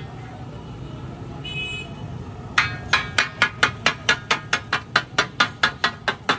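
Metal spatula striking an iron tawa griddle fast and evenly, about five ringing clacks a second, starting a little over halfway in, over a low steady rumble.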